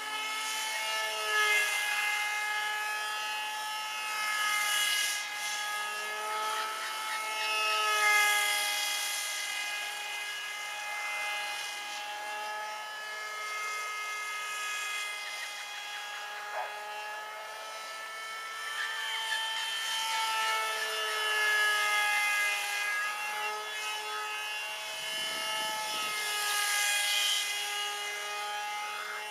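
Electric motor and propeller of an RCPowers F-22 V1 radio-controlled foam jet whining in flight, a steady high whine that shifts a little in pitch with throttle and swells louder several times as the plane passes nearer.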